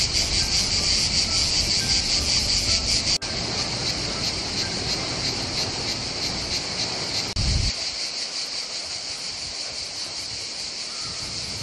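A dense chorus of cicadas: a shrill, high buzz with a fast pulse that holds steady throughout. Wind rumbles on the microphone for the first seven or so seconds, then drops away.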